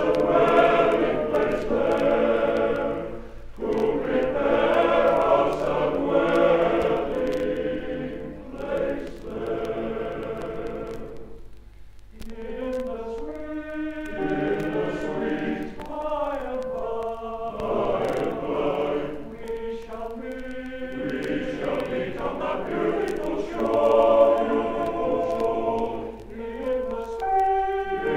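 Male voice choir singing a Victorian sacred or romantic ballad, played from a 1970 LP record. The singing comes in phrases, with a short drop about twelve seconds in and a thinner, quieter passage after it before the full choir swells again near the end.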